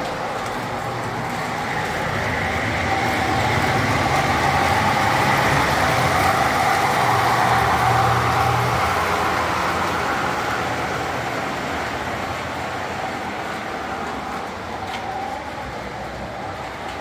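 Williams O gauge model EP-5 locomotive and passenger car running on three-rail track: a steady rolling rumble of wheels on the rails. It grows louder as the train passes close, then slowly fades.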